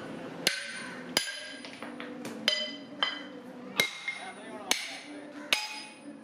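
Hand hammer striking a steel bar on an anvil: about eight sharp, ringing metallic blows, each a little under a second apart.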